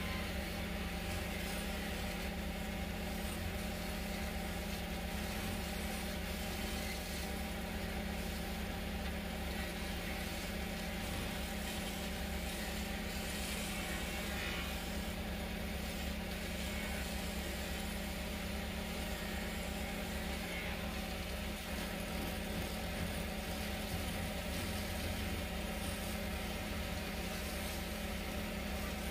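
Wood-turning lathe running steadily, its motor giving a constant low hum.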